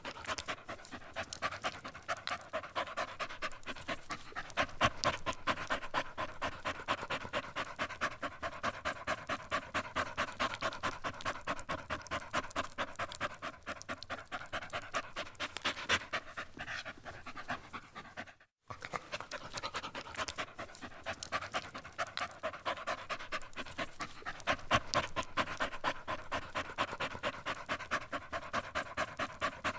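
A dog panting rapidly and evenly, fast short breaths in and out, with a brief break about two-thirds of the way in before the panting resumes.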